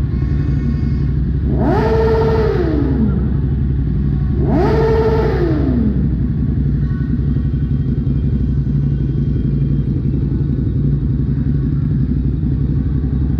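Dense motorbike traffic running with a steady low engine hum, while one motorcycle engine is revved twice, about three seconds apart. Each rev climbs quickly in pitch, holds briefly, then falls away.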